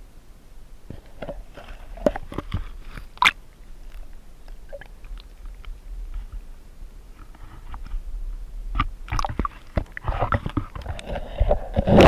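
Irregular crackling, rustling and sharp knocks close to the microphone, in two busy spells, one about a second in and one from about nine seconds on: camera handling noise as the camera is moved about.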